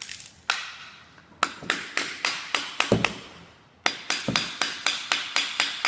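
Claw hammer striking a steel chisel set into a hardwood flooring plank, in quick sharp blows about four a second, with a short pause about three seconds in. The chisel is cutting through the glued-down board and its tongue and groove to get the damaged piece out.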